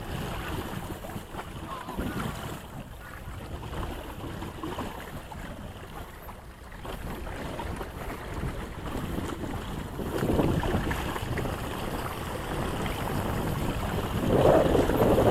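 Wind buffeting the microphone and water washing along the hull of a small sailboat under way. The noise swells louder about ten seconds in and again near the end.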